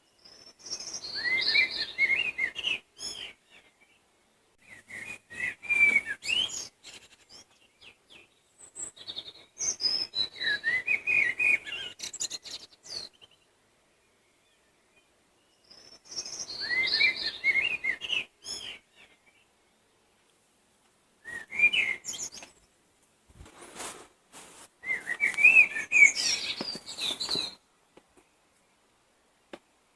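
A songbird singing a series of warbled phrases, each a few seconds long, of quick rising and falling notes, with silent pauses between them.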